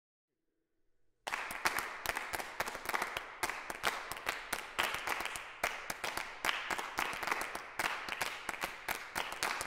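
Several performers clapping hands and snapping fingers as body percussion, starting suddenly about a second in as a dense, irregular patter of sharp clicks.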